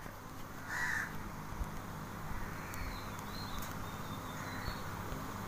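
Quiet background noise with a low steady hum, and a bird calling faintly, one short call about a second in and a few faint high chirps in the middle.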